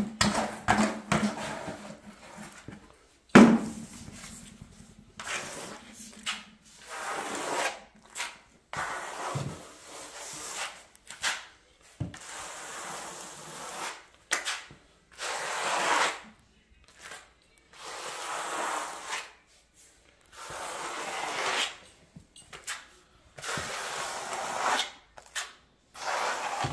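Notched steel hand trowel spreading and scraping floor-patch compound across the subfloor: about a dozen rough scraping strokes, each around a second long, with short pauses between them. A sharp knock about three seconds in is the loudest moment.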